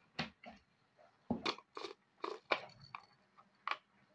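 A string of about eight short knocks and clicks with gaps between them: a small spice-grinder jar being handled and tapped to empty freshly ground spices into a ceramic dish.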